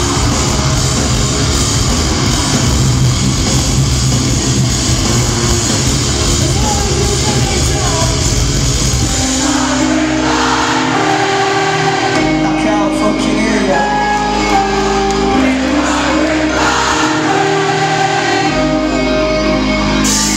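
Live metal band in a large hall playing loud and dense, then dropping about nine seconds in to a sparse section of held keyboard chords and bass notes with voices singing over it. The full band comes back in at the very end.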